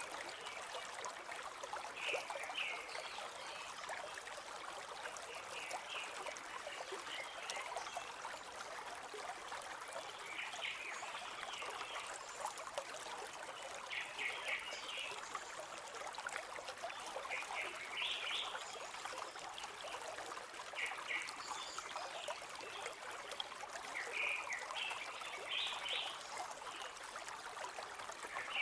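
River water flowing and trickling steadily, with short bursts of bird chirps every few seconds.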